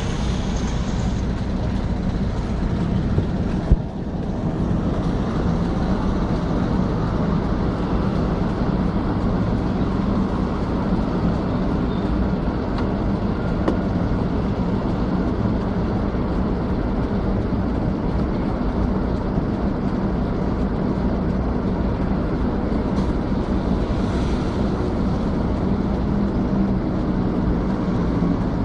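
Steady low rumble and hiss of vehicle or traffic noise, with a single sharp click about four seconds in.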